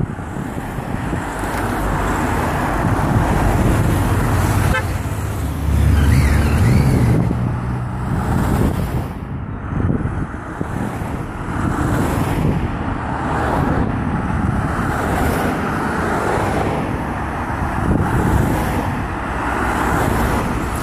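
A convoy of race team cars with bikes on their roof racks passing close one after another, the engine and tyre noise swelling and fading as each goes by.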